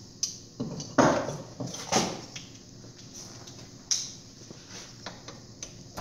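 Socket extensions and hand tools being handled on a workbench: a series of separate clinks and knocks, the loudest about one second and two seconds in, and another near four seconds.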